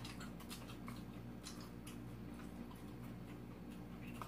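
Faint eating and food-handling sounds: scattered small clicks and ticks at an uneven pace, over a steady low hum.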